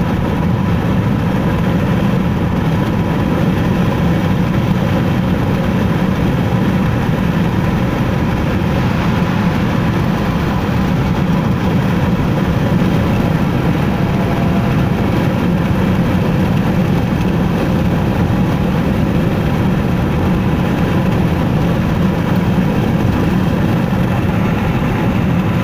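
Steady low rumble of tyres and engine heard from inside a car cabin while driving at highway speed, even and unbroken throughout.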